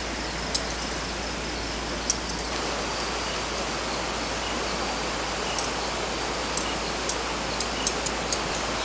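Steady rushing of a river flowing nearby, with a few faint sharp ticks scattered through it, more of them near the end.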